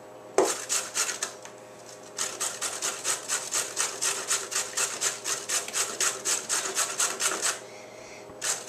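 A carrot being grated on a stainless steel box grater standing on a wooden board: quick, even rasping strokes at about four or five a second. A knock about half a second in, a short pause after it, and another pause near the end.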